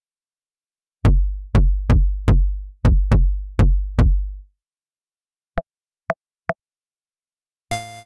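Cherry Audio Miniverse software synthesizer, a Minimoog emulation, playing its 'Aggressive Kick' preset: seven synthesized kick-drum hits about two a second, each a sharp click over a deep booming low end. Then three short pitched blips, and near the end a quick run of bright pitched synth notes as the next percussion preset starts.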